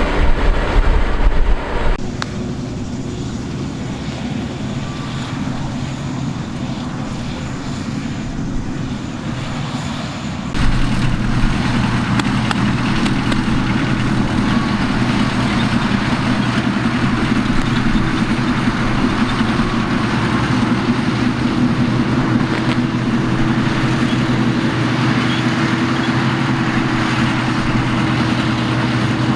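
Combine harvester running steadily: an engine drone with machinery noise over it. The sound changes abruptly about 2 seconds in and again about 10 seconds in, when it becomes louder.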